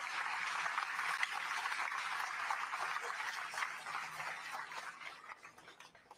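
Crowd applauding, a dense patter of clapping that dies away near the end.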